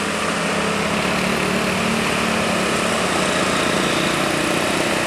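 Road traffic on an uphill bend: vehicle engines running steadily, with an engine tone that rises a little partway through as a vehicle pulls up the climb.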